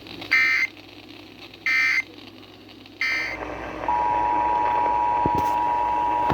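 Emergency Alert System tones off an FM broadcast: three short screeching data bursts about 1.3 seconds apart, the SAME end-of-message code closing the test. From about four seconds in comes the steady two-tone EAS attention signal of the next alert.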